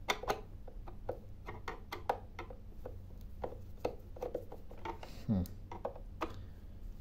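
Screwdriver working a screw out of a battery charger's plastic housing: a string of small, irregular clicks and plastic knocks as the tool turns and the case is handled.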